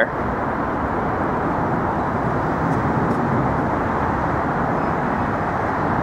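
Steady city street noise, a constant rumble of traffic with no distinct events.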